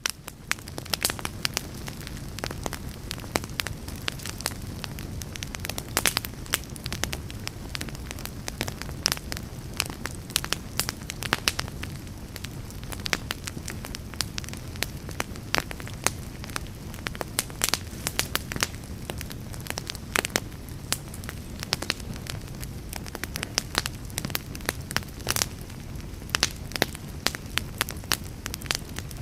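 Wood fire burning in a fireplace: a steady low rumble of flames with frequent irregular crackles and pops from the logs.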